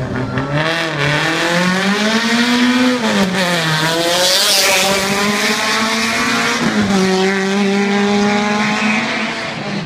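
Volkswagen Golf Mk1 hill-climb race car accelerating hard from the start line and passing close by. The engine note climbs, then drops sharply twice as it shifts up, at about three and seven seconds in. A hiss of tyre and exhaust noise is loudest as it goes past about four seconds in.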